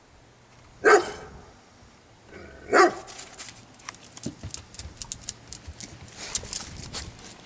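A dog barks twice, two short sharp barks about two seconds apart, the loudest sounds here. After them comes a busy run of light clicks and scuffling as the dogs move about.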